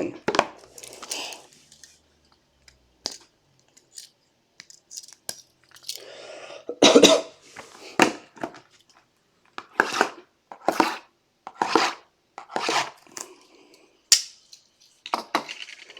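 Sealed trading-card box being opened by hand: shrink wrap and cardboard torn and plastic wrapping crinkled, in a run of short irregular rips and scrapes about a second apart, thicker in the second half.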